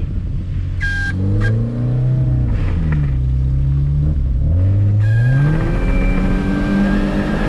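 Car engine revved up, dropping back, then revved again and held at high revs. A hiss with a thin whistle joins from about five seconds in while the revs are held.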